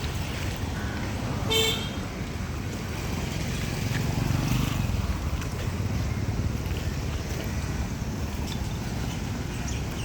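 A single short vehicle horn toot about a second and a half in, over a steady low outdoor background noise.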